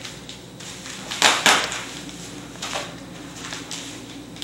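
Bubble wrap rustling and crinkling as it is handled and unfolded, with two louder crinkles close together about a second in and softer ones after.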